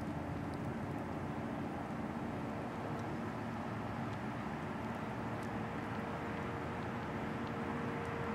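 Several distant outdoor tornado warning sirens sounding during a system test, holding steady tones at different pitches over a steady rushing background. The lower-pitched sirens fade about two and a half seconds in, and a higher-pitched siren grows louder over the last few seconds.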